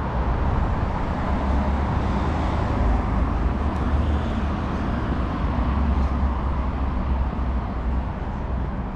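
Steady city traffic noise: a continuous road rumble with a deep low hum and no distinct single event.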